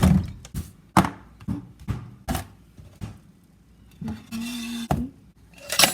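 A series of sharp knocks and clatters, about ten spread unevenly over six seconds, with a brief steady hum and hiss a little past four seconds in.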